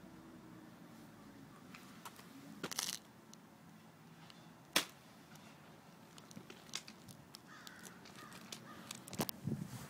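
A wrist-braced slingshot being handled and shot: a short rattle of clicks about three seconds in, then a single sharp snap a couple of seconds later, the loudest sound, followed by scattered light clicks and knocks and another sharp click near the end.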